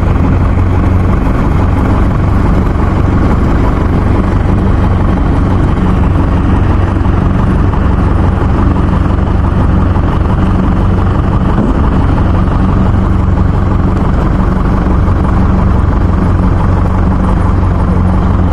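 Rice combine harvester running steadily under load, a constant engine drone with a low even hum.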